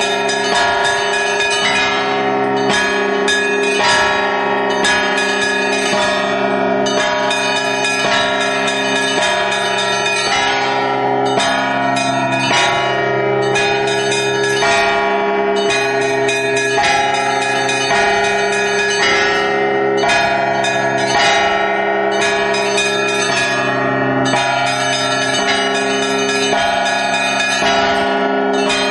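Russian Orthodox church bells rung by one bell-ringer pulling the clapper ropes of stationary bells: a continuous, loud peal of many overlapping bells at different pitches, the small bells struck in quick rhythmic strokes over the longer ringing of the deeper bells. Heard up close, from inside the belfry.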